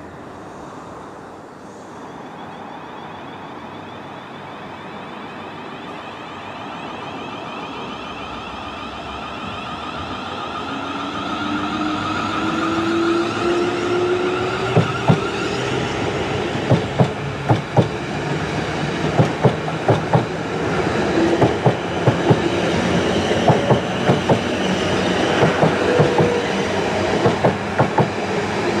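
South Western Railway Class 444 Desiro electric multiple unit approaching and running along the platform. A hum and motor whine grow steadily louder, then from about halfway in come regular clicks of the wheels over rail joints, often in pairs.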